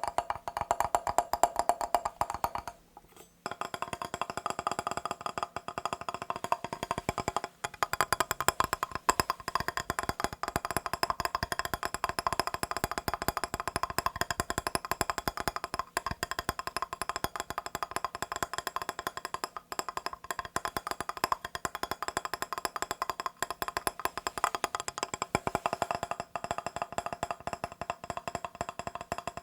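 Fast, continuous tapping on a mirror's glass surface: a dense run of quick clicks with a slight glassy ring. It pauses briefly about three seconds in.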